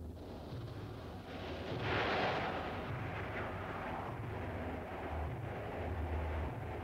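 Experimental noise piece from a sound-art cassette: a low, pulsing rumble under a hissing noise that swells about two seconds in and then settles.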